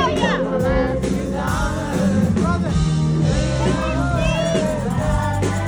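Country vocal group singing live with the full band: lead and harmony voices over drums and bass.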